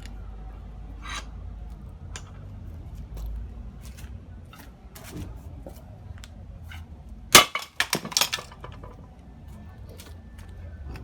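Sledgehammer striking a hardened-steel bicycle D-lock held in a vice: one loud metal blow a little past seven seconds in, followed at once by a quick clatter of knocks. It is likely the blow that fractures the lock's shackle.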